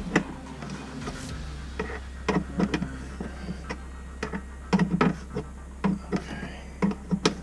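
Irregular clicks and clanks of hard tools and parts knocking together as someone rummages through a toolbox, with bunches of several quick knocks.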